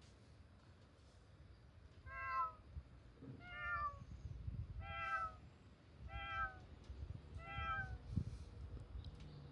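Five short, near-identical cat meows, evenly spaced about a second and a half apart, each dipping slightly in pitch, with soft low bumps beneath.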